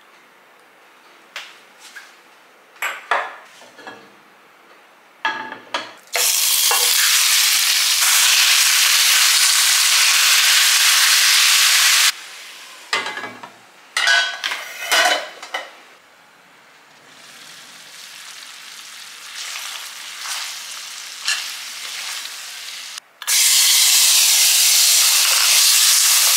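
Food sizzling in hot oil in a ceramic-coated wok, first marinated sliced beef being stir-fried, then julienned carrots stirred with a wooden spoon, with knocks of utensils against the pan in between. The sizzle comes in loud about six seconds in, stops abruptly around twelve seconds, runs softer for a while, and is loud again near the end.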